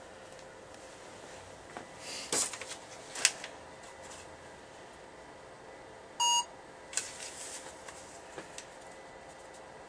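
Handling clicks and rustles, the sharpest about three seconds in, then a single short electronic beep about six seconds in from a smartphone barcode-scanner app confirming that a barcode has been read.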